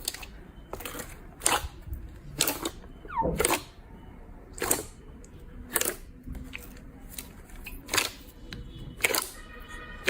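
Slime being squeezed and pressed, giving a sharp pop or click about once a second.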